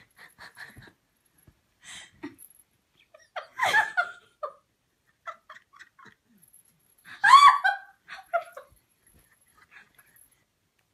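A person laughing and giggling in short bursts, with two louder bouts of laughter: one about a third of the way in and a high-pitched one just past the middle.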